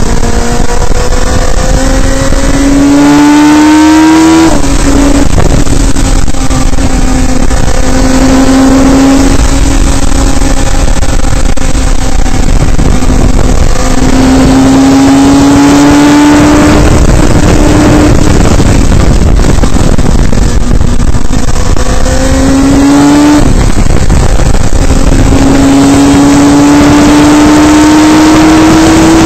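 Radical SR3 race car's motorcycle-derived four-cylinder engine under hard acceleration, heard from the open cockpit: the pitch climbs steadily and drops sharply at each upshift, several times over, with a steady rush of wind and road noise underneath.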